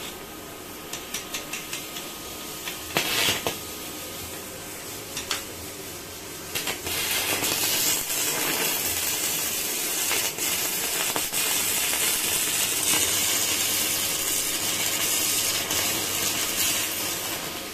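Stick (MMA) welding arc from a Welding World MMA-245 GS DC inverter welder, run with a No. 12 electrode on a thick steel shaft: a few short scratches and sputters as the rod is struck, then a steady crackle from about seven seconds in that eases off just before the end.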